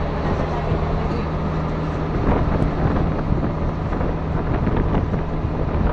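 Outrigger boat's engine running at a steady drone while under way, with wind buffeting the microphone and water rushing past the hull.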